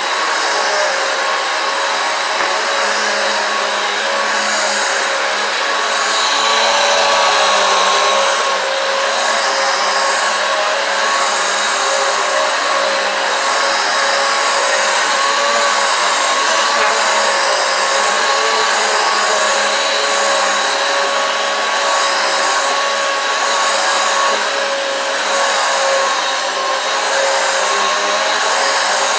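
Eureka AirSpeed One upright vacuum cleaner running steadily on a rug, its motor giving an even whine over rushing air, its brush roll driven by a freshly fitted belt. The sound swells slightly about six seconds in and then settles back.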